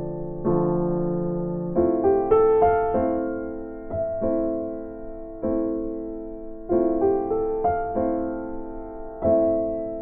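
Background music: a slow, gentle piano piece, chords struck about once a second and each left to fade before the next.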